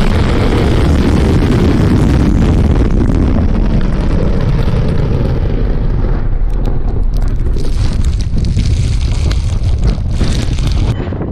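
Loud, continuous roar of an RS-28 Sarmat intercontinental ballistic missile's rocket motor igniting just above its silo, recorded close to the launch. From about seven seconds in it gives way to gusty rushing and crackling as the launch blast sweeps over the microphone.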